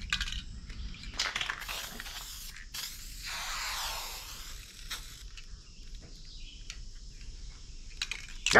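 Aerosol spray paint can hissing in several short bursts, the longest about three seconds in, with a few clicks between; its spray tip is clogging up. A voice starts right at the end.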